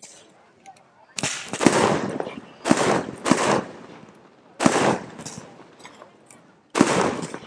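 Shots from the Chronos 268-shot fireworks cake: about six sharp bangs at uneven intervals, each trailing off briefly.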